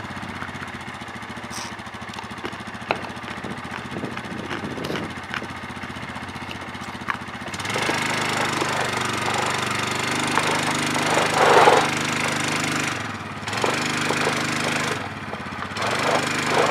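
ATV (four-wheeler) engine running steadily at low revs, then revved up hard about eight seconds in and again a few seconds later as it strains to back a loaded boat trailer; it doesn't have a lot of power for that boat.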